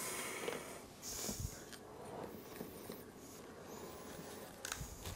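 Faint kitchen handling sounds: soft rustling and scraping with a few light clicks near the end, as ingredients and utensils are moved about.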